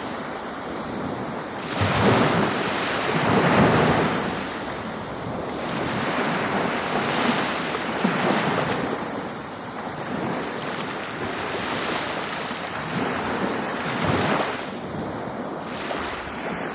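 Ocean surf: waves breaking and washing in, the rush of water swelling and falling back every second or two.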